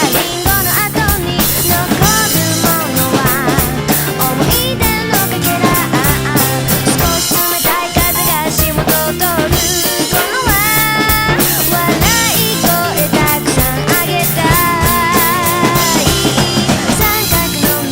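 A pop song with a wavering lead vocal melody, with drums played along to it in a steady beat of kick, snare and cymbal strikes.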